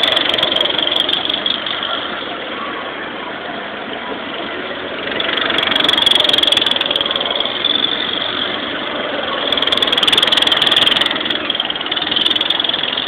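Go-kart engines running around the track, growing louder as karts pass close by about six seconds in and again about ten seconds in.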